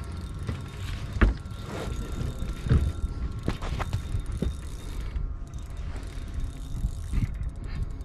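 Fishing reel ticking and whirring as line is wound in against a big hooked flathead, with scattered knocks, two of them louder, against the boat.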